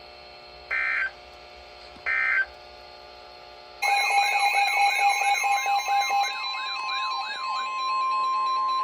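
Emergency Alert System data tones from a NOAA Weather Radio broadcast: three short, harsh data bursts that end the severe thunderstorm warning message. About four seconds in, a loud warbling alarm starts, its pitch sweeping up and down several times a second, and a single steady attention tone takes over near the end; this is the alert for the tornado warning that follows.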